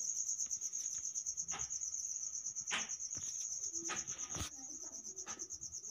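A faint insect trilling: a steady, high-pitched, rapid pulsing in the background, with a few faint clicks scattered through it.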